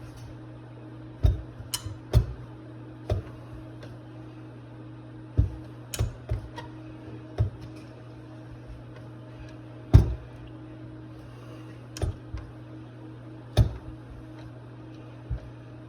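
Small metal carburetor parts and hand tools clicking and knocking, about a dozen sharp, short hits at irregular intervals as a Rochester 2GC carburetor is taken apart, over a steady low hum.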